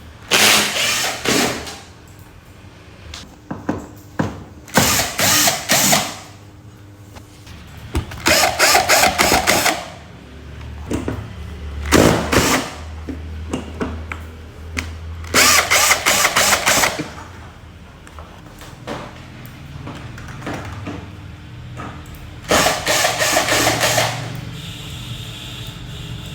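Power drill running in short bursts of one to two seconds, about six times, with pauses between.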